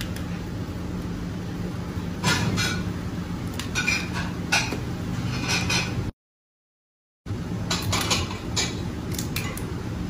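Spiny lobster shells cracking and crackling as the tails are twisted off the heads, with clicks and knocks of shell on a plastic cutting board over a steady background hum. The sound cuts out completely for about a second midway.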